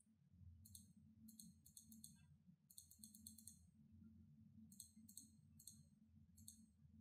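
Near silence: a low steady room hum with faint clicking in short clusters, about half a dozen times, from the desk controls of a computer being worked.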